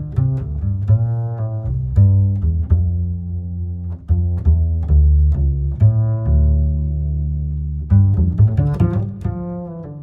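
Background music: a run of low plucked string notes.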